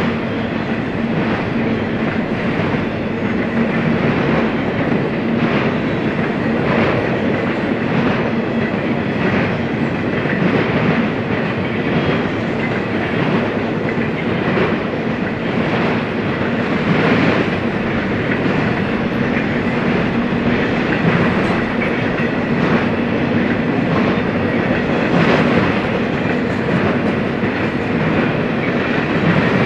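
Freight train cars rolling past at steady speed: a continuous rumble with the repeated clickety-clack of steel wheels over rail joints.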